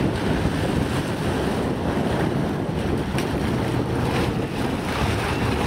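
Vaporetto water-bus diesel engine running as it manoeuvres alongside a floating stop, its propeller churning the water, with wind buffeting the microphone.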